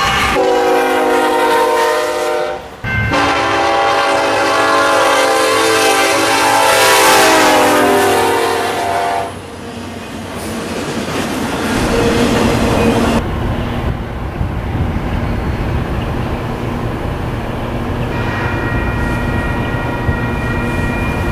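Freight locomotive air horn sounding a chord in two long blasts, the second dropping in pitch as the locomotive passes. A passing train's steady rumble follows.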